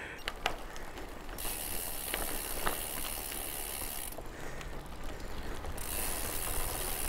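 Bicycle freewheel hub ticking as a fast, high buzz while coasting, in two spells: from about a second and a half in, and again near the end, stopping sharply in between.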